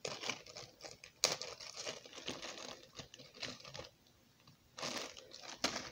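Thin plastic bag crinkling as it is handled and rummaged, with a sharper snap about a second in and another near the end.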